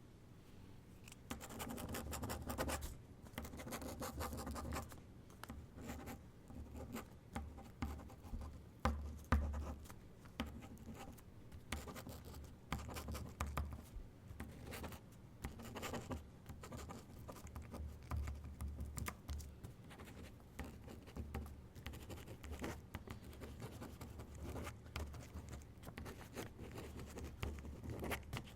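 Pen writing on paper: quick, irregular scratching strokes, broken by short pauses.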